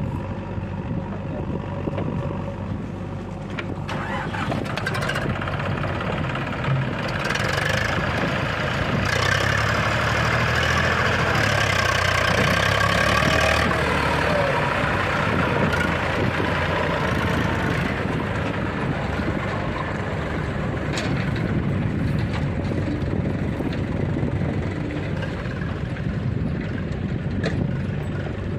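Diesel engines of a backhoe loader and farm tractors running steadily, working harder and louder from about eight seconds in to about fourteen seconds, then easing back.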